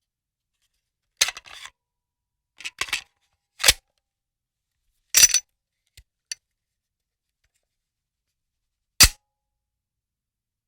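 Gun reloading sounds: a series of sharp metallic clicks and clacks in short groups a second or so apart, separated by silence, with two faint ticks about six seconds in and a single loud clack near the end.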